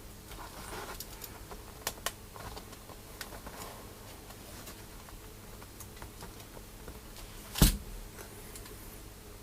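Scattered plastic clicks and snaps of Cherry MX mechanical key switches being pushed into a keyboard's aluminum plate and PCB, with one much louder knock about three-quarters of the way through.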